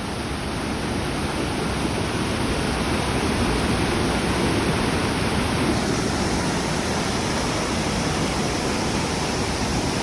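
Steady rushing of flowing river water, an even hiss and roar without breaks that grows a little louder over the first few seconds.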